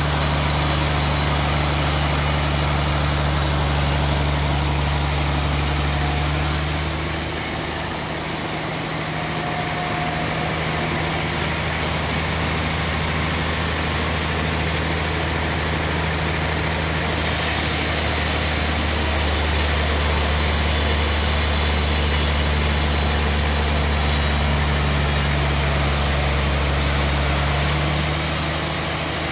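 Large band sawmill running steadily, its motor giving a loud low drone as the band blade saws through a big log. The low drone fades for about ten seconds partway through, then returns.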